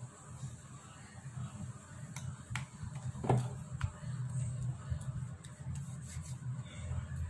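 A few light clicks and taps from hands patting and rubbing face cream into the face and neck, with one slightly louder tap about three seconds in, over a low steady room hum.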